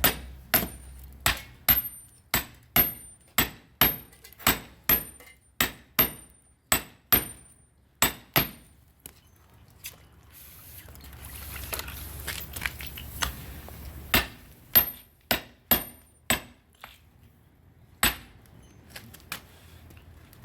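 Hammer blows on a hot-cut chisel being driven into a smelted iron bloom to split it, a steady run of about one and a half ringing metallic strikes a second. The strikes stop for several seconds around the middle, then a handful more follow.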